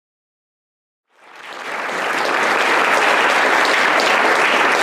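Audience applauding. It starts about a second in, builds over the next second and then holds steady.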